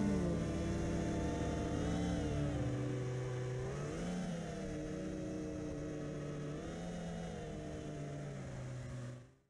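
Walkera Furious 215 FPV racing quadcopter's brushless motors and propellers whining, the pitch rising and falling a few times with the throttle; the sound stops near the end.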